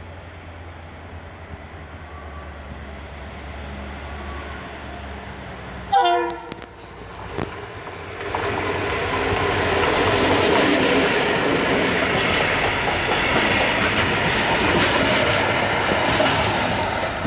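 TCDD DE 22000-class diesel-electric locomotive running as it approaches, with a short, loud horn blast about six seconds in. From about eight seconds the freight train passes close by, its wagon wheels clattering and clicking over the rails.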